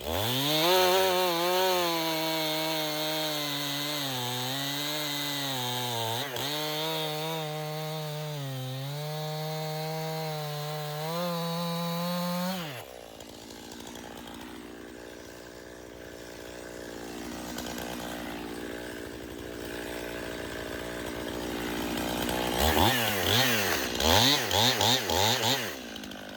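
Stihl MS291 two-stroke chainsaw held at full throttle for about twelve seconds, its pitch dipping now and then under load as it cuts wood. It then drops abruptly to idle, and near the end it is blipped up and down several times in quick succession.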